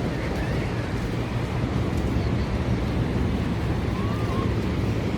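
Steady low rumble of wind buffeting the microphone, over the wash of surf breaking on the beach.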